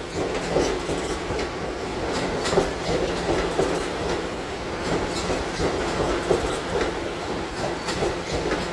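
New York City subway train running along the track, its wheels clicking irregularly over rail joints above a steady rumble.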